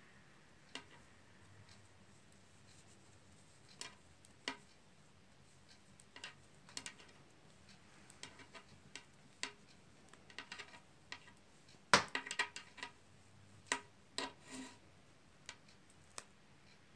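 Metal knitting needles clicking and tapping against each other at irregular intervals during knitting, with a quick run of louder clicks about twelve seconds in.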